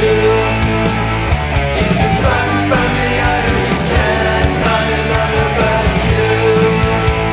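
Hard rock studio recording: distorted electric guitars through Hiwatt DR103/DR504 tube amplifiers with DiMarzio Super Distortion pickups, over bass and drums.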